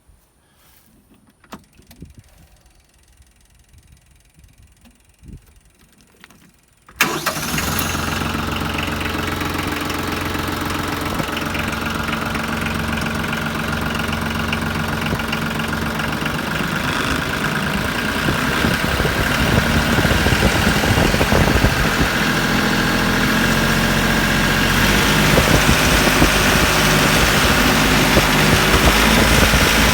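A few faint clicks, then about seven seconds in the Branson 3520h tractor's diesel engine starts at once and runs steadily, growing louder later on. It is being test-run just after a valve adjustment meant to cure a tapping in the valvetrain.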